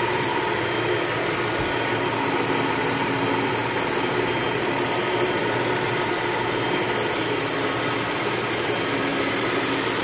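Chrysler Town and Country minivan's 3.3-litre V6 idling steadily, heard from the open engine bay.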